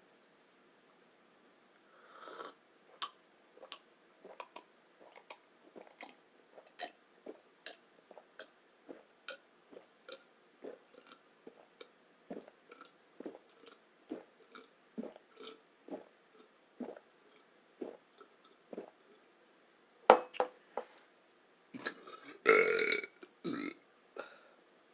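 Close-miked chewing of oatmeal with peaches and bananas: short, wet mouth sounds about twice a second. Near the end comes a loud, sharp sound and then a longer, loud burp.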